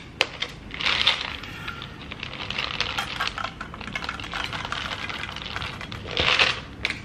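Dry kibble pouring from a plastic tub into a stainless steel bowl: a dense rattle of small pieces striking the metal, with a louder rush about a second in and again near the end.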